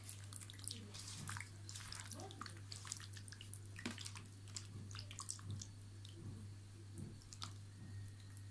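A hand squishing and kneading raw chicken pieces in a wet yogurt-and-spice marinade: faint, irregular wet squelches and small clicks, over a low steady hum.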